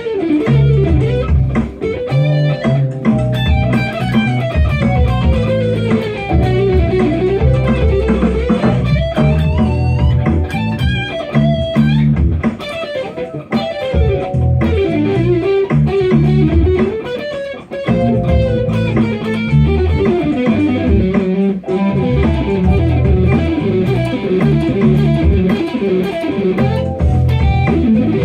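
Instrumental pop music led by guitar, with a melody that weaves up and down over a steady bass line.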